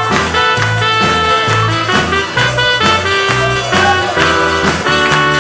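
Upbeat band music with no singing, an instrumental passage between sung lines of a worship song, with a bass line stepping from note to note about twice a second over a steady beat.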